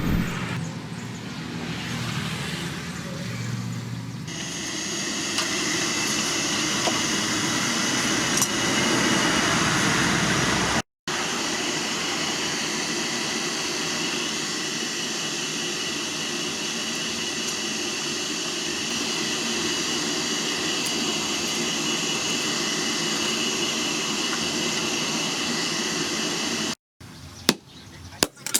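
Power grinder running against steel plough-disc stock, a steady noisy whine with high ringing tones. Near the end a few sharp hammer strikes on metal.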